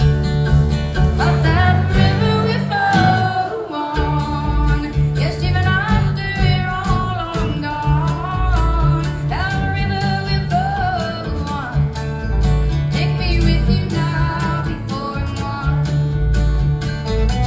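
Live country band music: strummed acoustic guitar over bass and drums, with a woman singing long, gliding notes.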